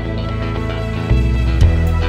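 Background music with held tones; a heavy bass line and beat come in about a second in.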